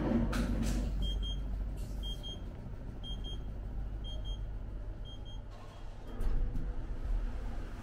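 An electronic beeper sounding short, high double beeps about once a second, five pairs in all, over a steady low rumble.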